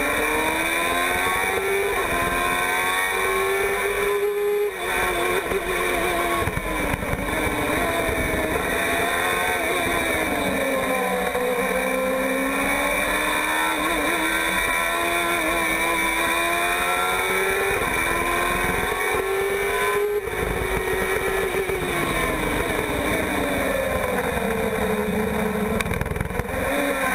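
Formula 1000 race car's 1000cc motorcycle engine, heard from the cockpit, running hard in second gear. Its pitch climbs and falls as the throttle is squeezed and lifted through corners, dipping briefly twice.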